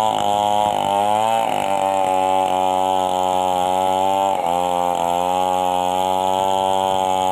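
Two-stroke chainsaw running steadily under load, its pitch sagging briefly twice as the chain bites into the wood.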